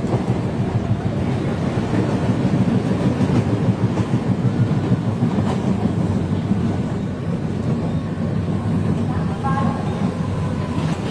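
Mumbai suburban local train running, heard from inside the carriage by the open doorway: a steady low rumble of the moving train. Faint voices come in near the end.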